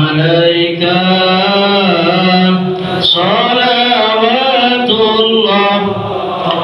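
A group of men chanting a sholawat (Islamic devotional song praising the Prophet) together, a slow melody whose notes are held and bend up and down with hardly a break.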